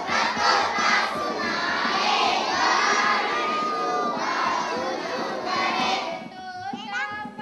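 A large group of children's voices calling out together, many voices overlapping, then thinning into a few sung lines near the end.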